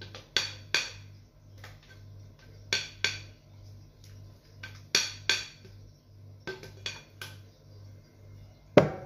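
A kitchen utensil knocking against a glass bowl in short, sharp clinks, mostly in pairs every couple of seconds, as whipped cream is scraped out of the bowl; the loudest clink comes near the end. A faint steady low hum runs underneath.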